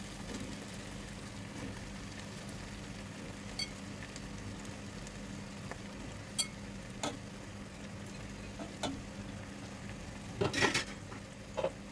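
Cauliflower florets dropped by hand into a pot of sizzling tomato masala, with light scattered clicks and knocks over a steady low hum. A louder clatter comes near the end.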